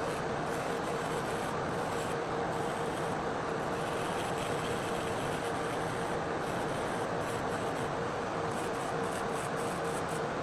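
Nail dust collector (nail vacuum) running steadily: a continuous fan rush with a constant hum through it.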